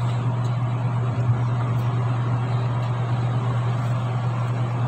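Steady low mechanical hum over an even background hiss, with one brief knock about a second in.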